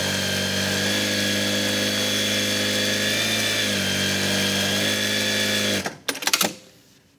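Industrial straight-stitch sewing machine running steadily, stitching through a denim hem, run after an oil change to flood the fresh oil through its moving parts. It stops suddenly about six seconds in, followed by a few short clicks.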